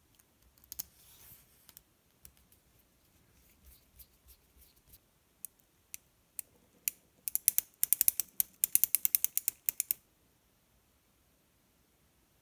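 Small metal parts of a WPL C34 metal front axle clicking and scraping as the steering knuckle is handled and screwed on with a small hex driver. Scattered single clicks, then a quick, loud run of rapid clicks, about nine a second, for roughly three seconds.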